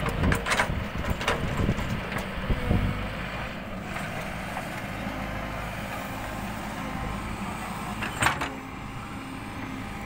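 Backhoe loader's diesel engine running steadily under load while the backhoe bucket digs into soil, with a few sharp knocks and clanks from the bucket and arm, the loudest about eight seconds in.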